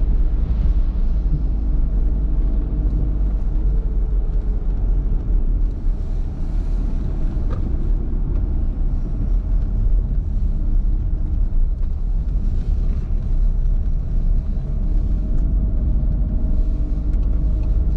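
Steady low rumble of a car driving on a wet road, heard from inside the cabin: engine hum under tyre noise.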